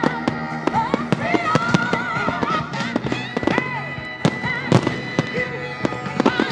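Fireworks going off in rapid bangs, many sharp reports in quick succession, over music.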